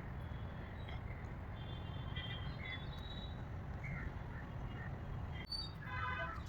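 Outdoor ambience: short, high bird chirps scattered over a steady low rumble, with a harsher call near the end.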